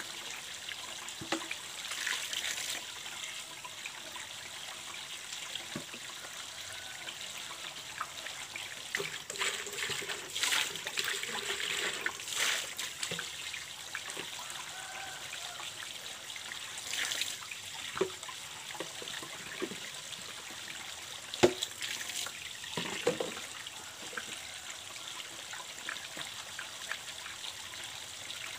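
Water trickling steadily from a PVC pipe onto wet ground, with splashes as a pot and buckets are tipped and emptied, and a few sharp knocks of the containers; the loudest knock comes about twenty seconds in.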